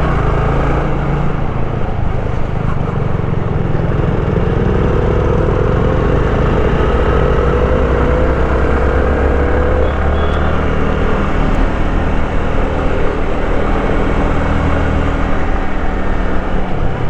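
Motorcycle engine running steadily under way with a low drone, its note rising gradually from about four seconds in until about ten seconds in.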